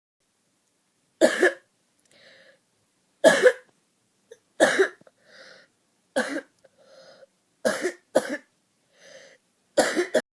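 A woman coughing in a fit: about seven sharp coughs, some coming in pairs, with a quieter breath drawn between them.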